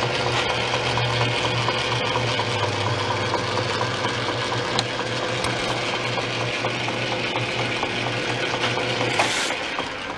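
Atlas 10-inch metal lathe running slowly with a boring bar in a cast-iron motorcycle cylinder: a steady motor and gear hum. The hum drops away about nine seconds in.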